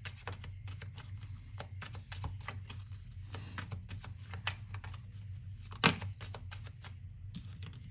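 Tarot cards being shuffled and handled to draw clarifier cards: a run of light, irregular clicks and taps, with a sharper knock about six seconds in, over a steady low hum.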